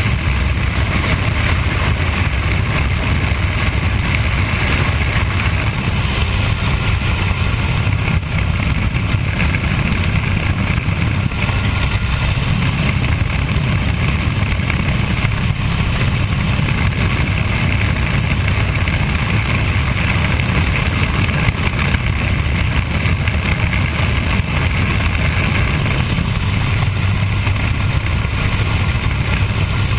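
de Havilland DH82A Tiger Moth's Gipsy Major four-cylinder engine and propeller running steadily at cruise, heard from the open cockpit with wind rushing over the microphone.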